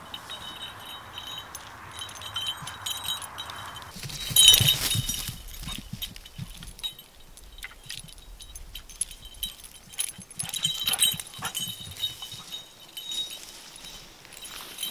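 Jingling of a dog's collar as the Vizsla moves about, small metallic rings and clicks, with a louder burst of jingling and rustling about four seconds in.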